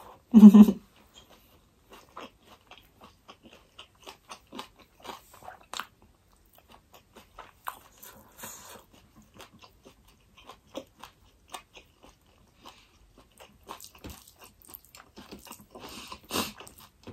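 Close-miked eating sounds: a run of small wet mouth smacks and crunches as food is chewed. There is one short vocal sound about half a second in.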